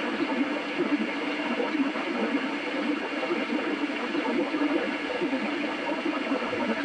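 Steady hiss of static from a radio receiver with weak reception.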